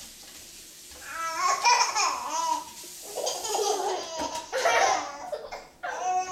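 Baby laughing in three bouts of giggles and squeals.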